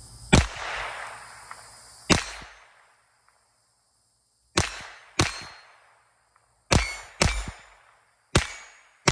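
Smith & Wesson M&P 22 Compact .22 LR pistol firing seven single shots at uneven intervals, in pairs about half a second apart after the first two. A short metallic ring follows some of the shots.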